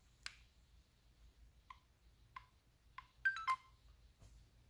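LEGO Spike Prime hub's built-in speaker: a click, then a few short electronic beeps, then a quick falling run of tones as the hub powers down from its centre button.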